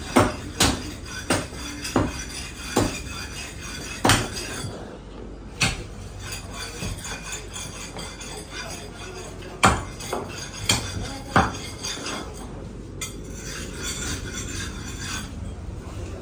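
Butcher's cleaver chopping meat and bone on a wooden chopping block: a run of sharp chops about every two-thirds of a second at first, then a few more spaced further apart, over a steady clatter of metal and shop noise.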